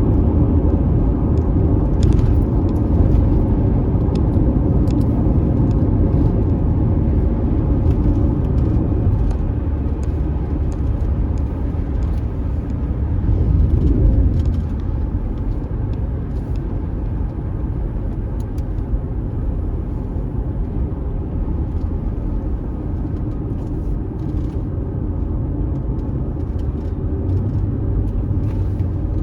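Car driving on a dusty dirt road: a steady rumble of tyre and engine noise, with scattered small ticks.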